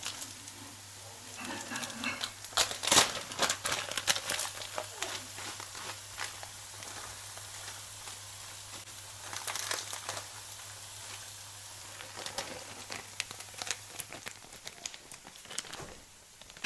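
Crinkling and rustling with scattered light clicks and clatters, kitchen handling noises, over a low steady hum that stops near the end.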